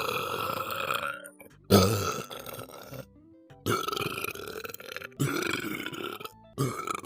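A person burping on purpose, over and over: a run of about five long, drawn-out burps, each lasting a second or so, with short pauses between them.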